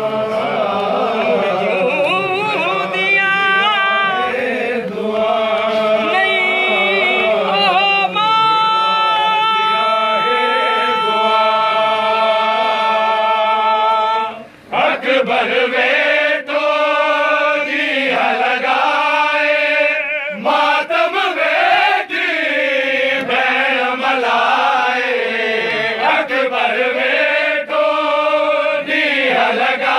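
Voices chanting a Sindhi noha, a Shia mourning lament, in long drawn-out melodic lines with notes held for several seconds. The chant breaks off briefly about halfway through, then resumes.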